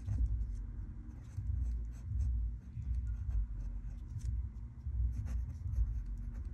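Someone writing by hand: short scratchy strokes and small taps at an uneven pace, with dull low bumps in between.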